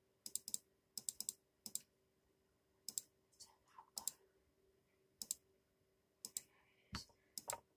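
Faint, sharp clicks, singly and in quick clusters of two or three, like buttons being pressed, over a thin steady hum.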